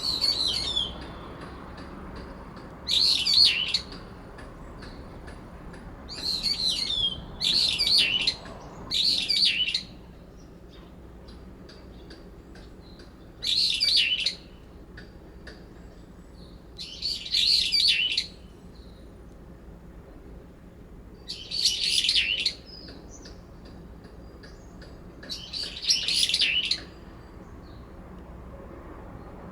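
Brown-eared bulbuls calling in a territorial dispute between two birds: about ten loud, harsh, warbling calls of about a second each, spaced a few seconds apart, with a few calls coming in quick succession.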